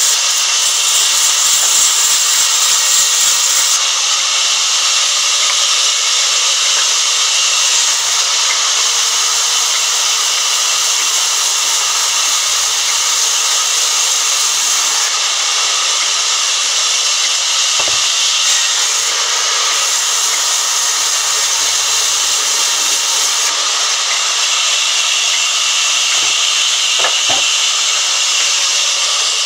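Large vertical band saw ripping a thick hardwood plank: a loud, steady hiss of the running blade cutting through the wood, unbroken throughout.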